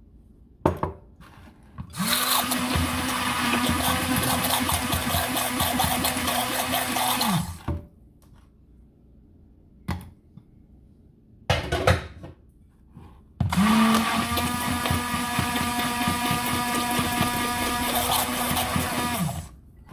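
A 300-watt hand-held immersion blender runs in two bursts of about five to six seconds each, beating eggs into butter in a glass bowl. Its motor whirs up quickly at the start of each burst and winds down at the end. Between the bursts there are a few short knocks and clinks.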